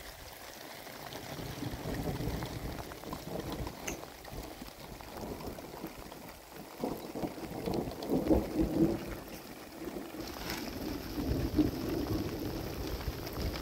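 Rain falling, with gusty wind rumbling on the microphone that swells and eases several times.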